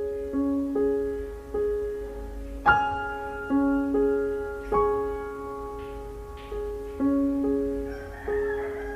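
Soft background piano music: single notes struck one after another at a slow, even pace, each ringing on and fading.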